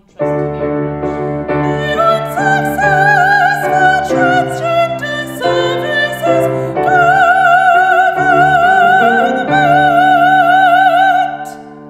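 Mezzo-soprano singing in operatic style with wide vibrato over piano chords. The song ends on a long held note of about four seconds that stops shortly before the end.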